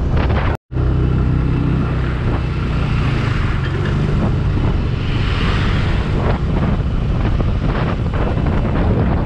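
Motorcycle engine running at a steady cruising speed, with heavy wind noise on the handlebar-mounted microphone. The sound cuts out completely for a split second just over half a second in, and the hiss swells briefly around the middle.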